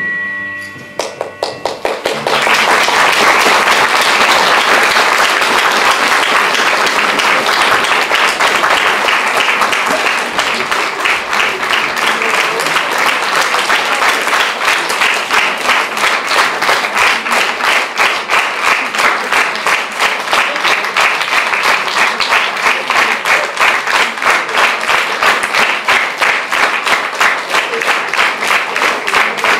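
Theatre audience applauding a curtain call, starting about two seconds in as the closing music ends. After about ten seconds the applause turns into rhythmic clapping in unison, about two to three claps a second.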